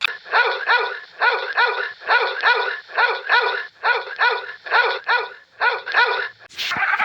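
A dog barking in a quick, even run of high yips, about three a second, for around six seconds. The barks stop shortly before a sharp click near the end.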